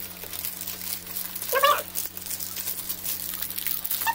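Plastic shopping bag crinkling as it is handled, with two short high-pitched cries, one about a second and a half in and one at the very end, the loudest sounds.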